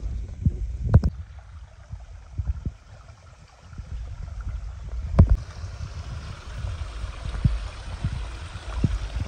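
Wind buffeting the microphone with a low rumble, over irregular footfall thumps and a few sharp clicks of a hiker walking on the trail.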